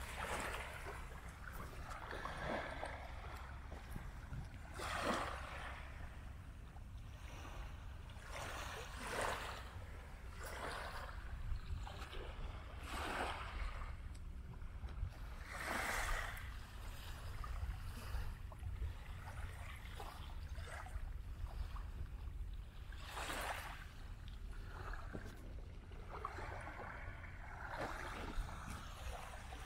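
Small waves washing onto a sandy shore in irregular surges every few seconds, over a steady low rumble of wind on the microphone.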